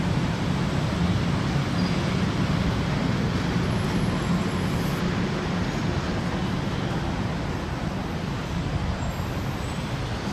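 Steady street traffic noise, a continuous rumble with no single event standing out.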